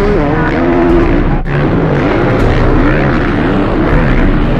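Several motocross bike engines revving hard at once, their pitch rising and falling as the riders take a jump, with a brief break about a second and a half in.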